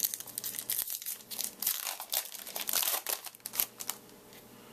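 Crinkling and crackling of a foil trading-card pack wrapper being handled and torn open, thick for the first three seconds or so, then dying away near the end.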